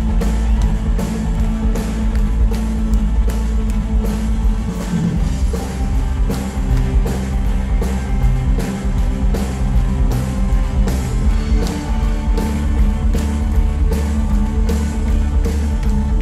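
Live rock band playing with drum kit, guitar and keyboards, the drums keeping a steady beat of about two hits a second. Recorded on a phone right beside a PA speaker, so the bass is heavy and boomy and dominates the mix.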